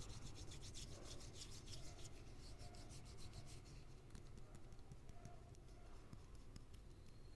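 Soft scratchy rubbing and fine crackling from hands handling a soap bar and its wrapping, fading slightly over the few seconds.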